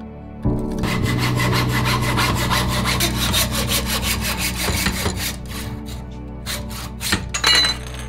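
Hand saw cutting through a carbon fork steerer tube held in a saw guide: quick, even back-and-forth strokes starting about half a second in, slowing to a few separate strokes near the end.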